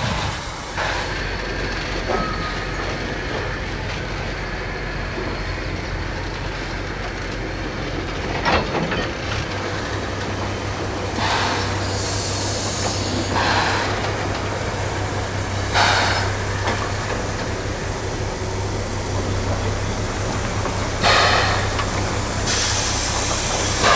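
1909-built steam locomotive A 428 running slowly with a steady low rumble. From about halfway in come loud hissing blasts of steam from the open cylinder drain cocks, a couple of seconds apart.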